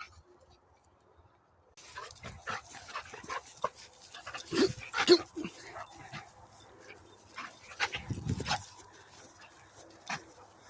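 A dog whining and giving short yips in uneven bursts, loudest about five seconds in.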